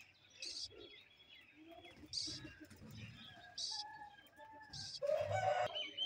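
Parrot chicks calling: short raspy squawks roughly every one and a half seconds, with a louder, lower call near the end.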